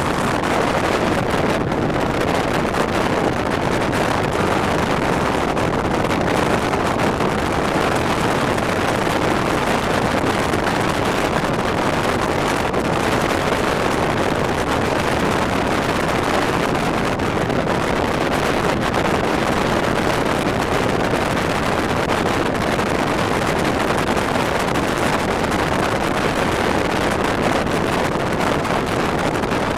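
Strong wind blowing hard over the microphone in a steady, unbroken rush with no gusts or breaks.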